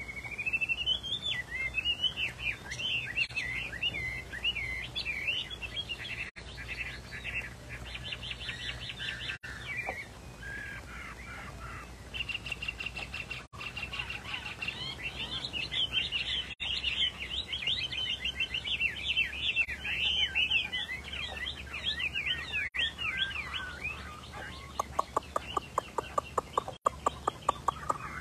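Chinese hwamei singing: a long, varied song of rapidly rising and falling whistled phrases mixed with quick trills, ending in a fast run of sharp repeated notes, about five a second.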